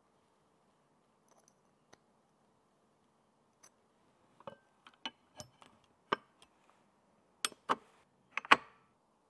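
Sharp clicks and taps of hard parts being handled and fitted onto a mini-ITX motherboard. There are a few faint ticks at first, then a quick run of louder clicks over the last five seconds, the loudest near the end.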